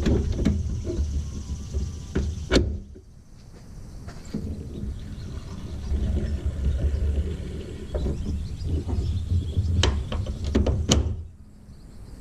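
Hands-on work at a pickup's tailgate: low rumbling handling noise with a few sharp clicks and knocks, one about two and a half seconds in and two near the end.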